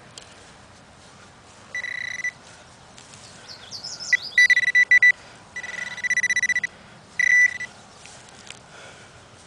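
Handheld metal-detecting pinpointer, a Garrett Pro-Pointer, alarming on a coin in a dug plug of soil: four bursts of one steady high beep tone, the middle two pulsing rapidly.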